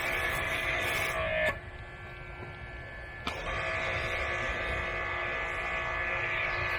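Pressure washer spraying soap foam, its motor running with a steady whine over the hiss of the spray. It cuts off sharply about a second and a half in as the trigger is released, then starts again with a click nearly two seconds later and runs on.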